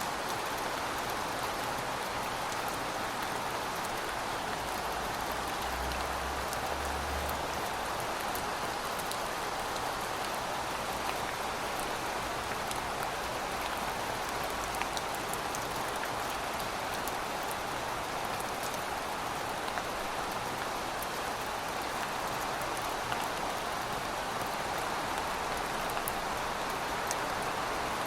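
Steady rain falling, a constant even hiss with scattered individual drops ticking on a surface.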